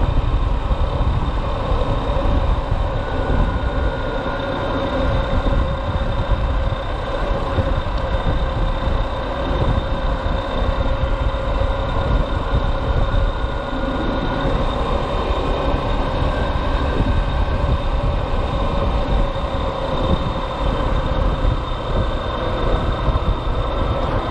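Motorcycle running on the move, with steady road and wind noise; a deep, even rumble with a few faint steady whining tones above it.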